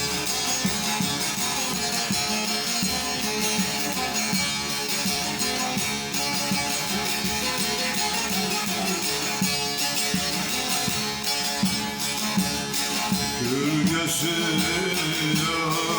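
Instrumental introduction of a Turkish folk song (türkü) played on plucked string instruments at a steady level. A voice starts singing near the end.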